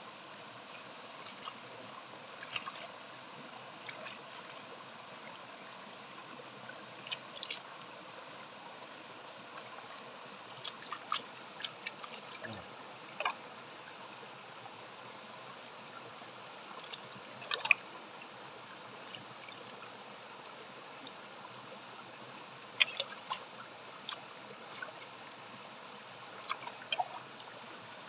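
Shallow stream trickling over stones, with irregular short splashes and knife scrapes from charred bamboo shoots being peeled and rinsed in the water.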